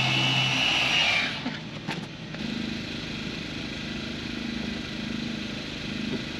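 Electric polisher's high whine, which cuts off about a second in. A single click follows, then a steady low mechanical hum like an idling engine.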